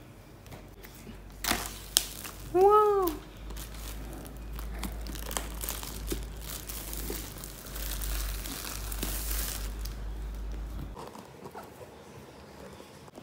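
Paper pull-tab seal and wrapping being torn and crinkled off a MacBook Pro box: a couple of sharp rips, then a long stretch of rustling and crinkling packaging that dies away near the end. A short excited "Wow!" comes about three seconds in.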